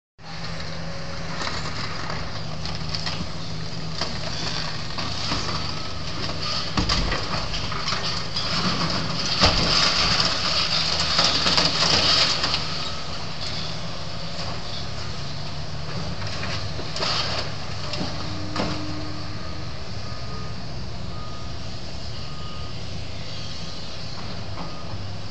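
Long-reach demolition excavator's diesel engine running steadily while its jaws tear into a concrete tower, with crunching and scraping of breaking concrete and metal loudest from about 6 to 13 seconds in and a few sharp cracks after.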